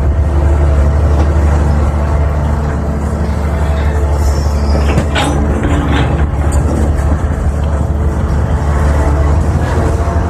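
Excavator's diesel engine running steadily under load, a low, constant drone. A few short, sharp higher-pitched sounds come about halfway through.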